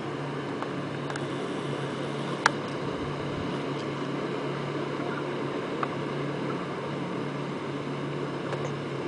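Twin outboard motors of a large pontoon houseboat running steadily as it cruises by, a low even drone. A single light click about two and a half seconds in.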